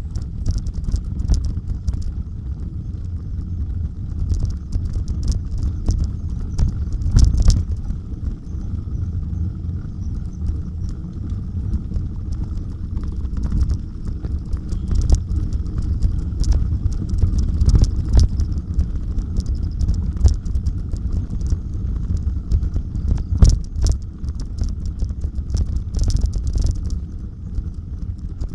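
Bicycle riding over a rough off-road trail: a steady low rumble from wind buffeting and the bumpy ground, with frequent sharp rattles and clicks from the bike.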